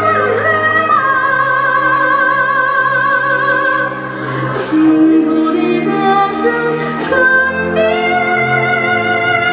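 Tibetan-style Chinese song playing for a dance: a woman sings long held notes with wide vibrato over an instrumental backing, starting a new phrase about seven seconds in.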